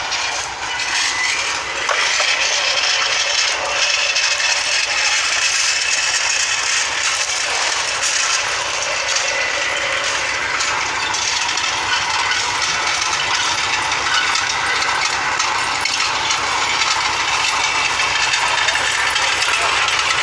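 Road-repair work: a steady, dense clatter and scraping of many small hard knocks.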